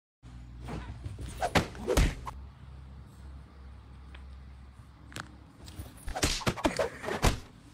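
Quick slaps and thumps in two flurries, one about a second and a half in and one about six seconds in: a hand play-slapping a tabby cat's head and the cat batting back.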